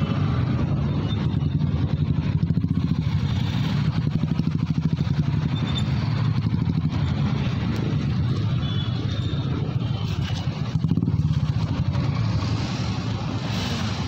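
Motorcycle engine running close to the microphone: a steady low, fast pulsing throughout.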